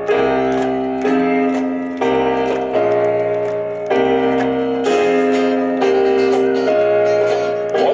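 Band music led by a stage keyboard playing held piano-like chords that change about once a second, with light cymbal ticks over them.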